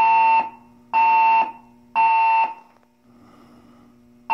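Building fire alarm horns sounding the temporal-three evacuation signal: three loud, buzzy half-second blasts a second apart, a pause, then the pattern starting again right at the end. This is the signal to leave the building.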